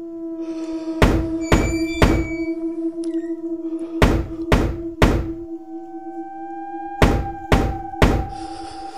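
Knocking on a door in three sets of three evenly spaced knocks, about two a second, over a steady held drone of eerie background music.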